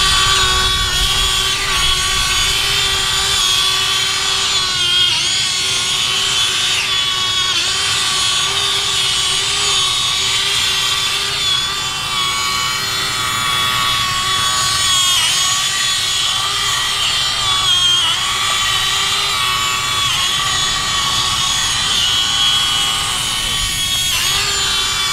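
Electric drive motors and gearboxes of a Double E Volvo EC160E remote-control toy excavator whining steadily as it crawls on its tracks over rough, muddy ground, the pitch dipping briefly every few seconds as the drive eases off and picks up again.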